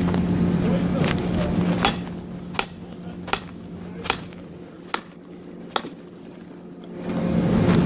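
Six sharp knocks, about one every 0.8 seconds, over the steady hum of an engine, which drops away after about two seconds and comes back near the end.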